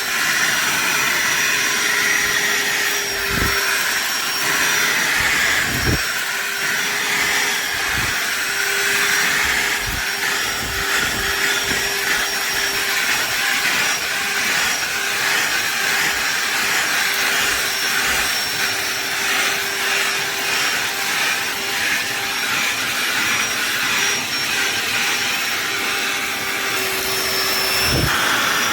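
DeWalt DCV501LN 18V cordless vacuum cleaner running steadily, a constant airflow hiss with a high, even motor whine. A few short low knocks come through it.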